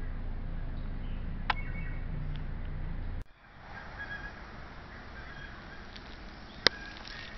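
Outdoor ambience with faint, scattered bird chirps. A low steady hum runs under the first three seconds and cuts off abruptly, and there is a sharp click near the end.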